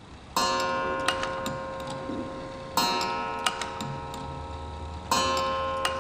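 Black Forest automaton clock striking: three slow, evenly spaced strikes, each ringing out and slowly dying away, with light clicks from the movement between them. The dumpling-eater figure is working as it strikes.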